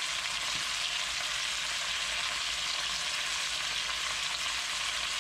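Chicken pieces searing skin side down in hot olive oil in a Dutch oven: a steady sizzle.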